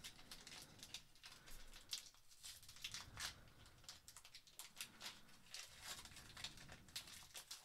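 Foil wrapper of a Pokémon trading-card booster pack crinkling and tearing as it is ripped open by hand: a faint run of small crackles.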